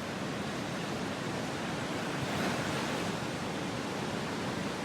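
Ocean surf: a steady rush of waves breaking and washing onto the beach, swelling a little about halfway through.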